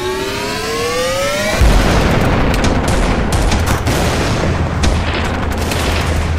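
A rising whine, climbing steadily in pitch, cuts off suddenly about a second and a half in. Battle sound replaces it: a steady low rumble under rapid rifle and machine-gun cracks and booms.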